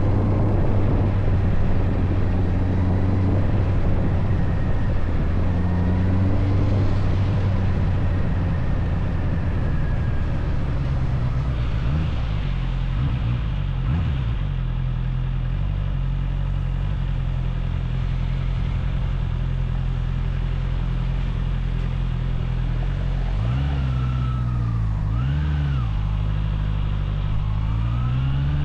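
Motorcycle engine running with road and wind noise; about twelve seconds in it settles to a lower, steady note. Around twenty-four seconds in it gives two short revs, and near the end the note rises as it accelerates.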